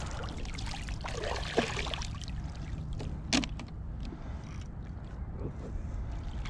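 A released fish splashing and kicking away in the water beside a kayak, over a steady low rumble. Two sharp clicks sound about a second and a half and three seconds in.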